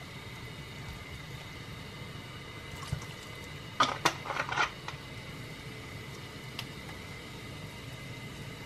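Soju poured into a pot of water, chicken and vegetables: a brief run of sharp splashes about four seconds in, over a steady hum.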